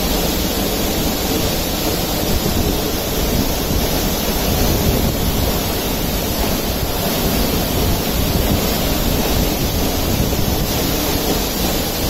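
Waterfall: a tall cascade of water pouring down a rock face, a loud, steady rushing noise that does not change.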